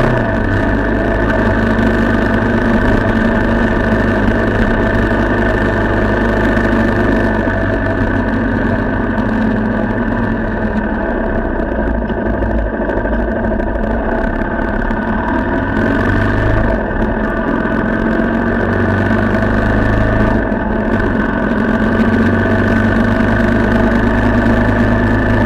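An engine running steadily at an even speed, its pitch barely changing.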